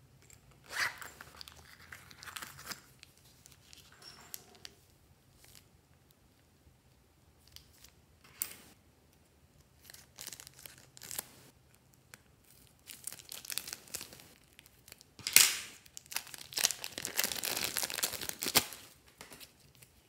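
Plastic zip bag of slime being handled: crinkling and rustling in a string of short bursts, loudest over the last few seconds as the blue slime is squeezed out of the bag.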